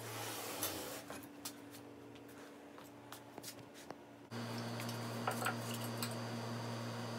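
Faint handling noises: scattered light clicks and rubbing. About four seconds in, a steady low hum starts abruptly, with a few more clicks as the metal-framed rocking horse is handled.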